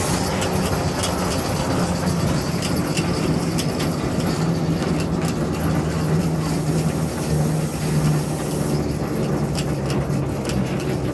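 Gemco narrow-gauge locomotive running on the move, its engine a steady low drone with scattered light clicks.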